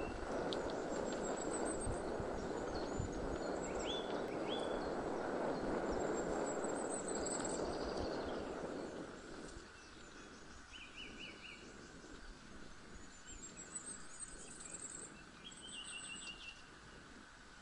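Songbirds singing, with repeated short chirps and high thin trills. Over the first half a steady rushing noise sits underneath, then drops away about halfway through, leaving the birdsong over a quiet background.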